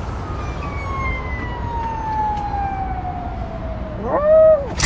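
Poodle-type dog howling like a siren: one long wail that slowly falls in pitch, then a short, louder howl that rises and falls near the end.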